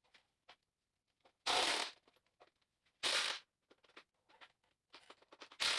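Cordless impact wrench hammering in three short bursts of about half a second each, loosening the clamp nuts that hold a tractor's adjustable rear rim to its wheel center, with faint clicks between bursts.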